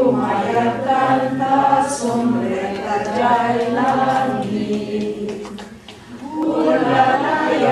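A group of people singing a cappella in sustained, held notes, with a brief break between phrases about six seconds in.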